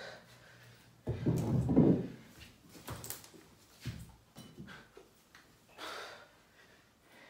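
Thuds on a wooden floor as a person drops into a devil press with a kettlebell, the heaviest about a second in, then a few lighter knocks and a short breath out about six seconds in.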